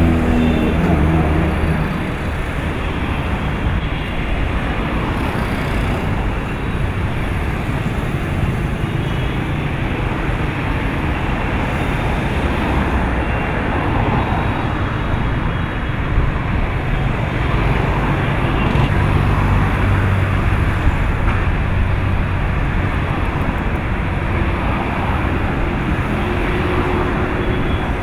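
Steady city road traffic noise, with a heavier vehicle's engine louder near the start and again about two-thirds of the way through.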